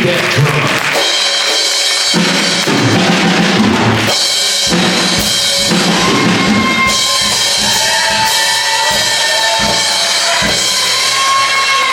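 Live church band music: a drum kit playing with bass drum, snare and cymbal strikes over several held pitched notes.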